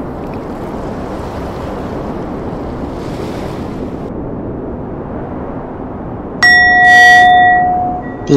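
Steady noise of ocean surf, then about six seconds in a sudden loud bell-like ding that rings with several overtones for about two seconds and fades away.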